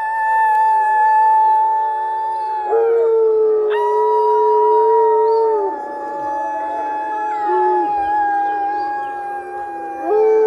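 A chorus of wolf dogs howling together, with a woman howling along: long drawn-out notes at several pitches overlap and slide down at their ends. A fresh low howl joins near the end.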